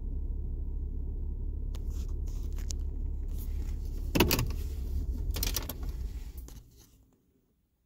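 Vehicle engine idling with a steady low rumble, heard from inside the cab. From about two seconds in there are clicks, knocks and rattles, the loudest a sharp knock a little past the middle, like a door or window being worked. Near the end the engine rumble dies away to near silence, as when the engine is switched off.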